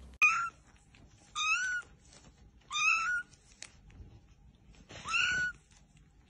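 Small kitten meowing: four short, high-pitched meows spread over several seconds.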